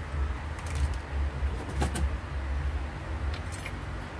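Metal edge guide of a Makita trim router clinking and rattling as it is slotted into the router's base, with a few sharp metallic clicks, the sharpest about two seconds in, over a low rumble.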